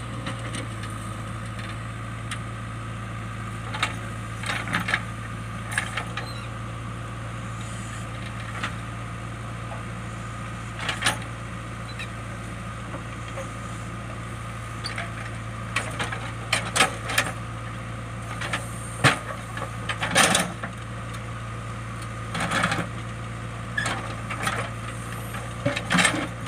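JCB backhoe loader's diesel engine running steadily, with scattered knocks and cracks as the bucket strikes and scrapes rocks, more often in the second half.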